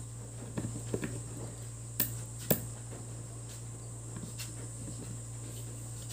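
A few small sharp clicks and taps as a soldering iron works on an IC's pins on a circuit board, over a steady low hum and a thin, high steady whine.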